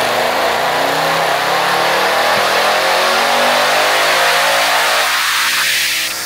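Whipple-supercharged 2024 Ford Mustang Dark Horse's Gen 4 Coyote 5.0 V8, through its stock exhaust, at wide-open throttle on a chassis dyno. Its pitch rises steadily as it pulls up through the revs, then the throttle is lifted near the end and the sound drops away.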